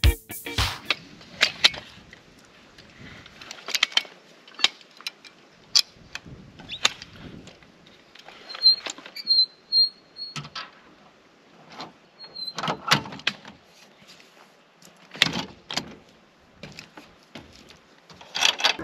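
Scattered knocks and clicks of gear being handled on a car's roof rack, with a short squeak about halfway through.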